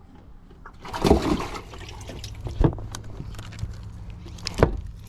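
A brief rush of splashing water about a second in, followed by a few sharp knocks, over a faint steady low hum.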